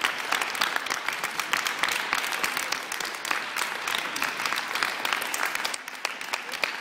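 Spectators clapping in steady applause, thinning a little near the end.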